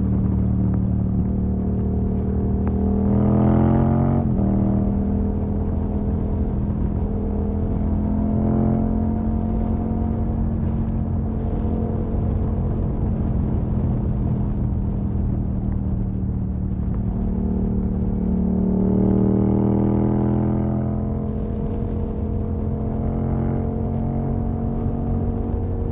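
Yamaha MT-07 parallel-twin engine running through an exhaust with the dB killer removed, holding a steady note with two brief rises in revs, about three seconds in and again near twenty seconds in.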